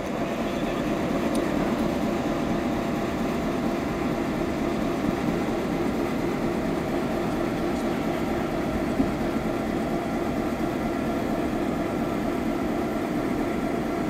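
Victorian Railways diesel-electric locomotives X31, B74 and T378 idling while standing, a steady engine rumble with a faint steady whine.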